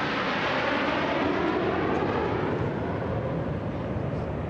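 Jet aircraft of a fly-past formation, a C-17 transport with two Su-30MKI fighters, flying past: a steady rushing jet-engine noise.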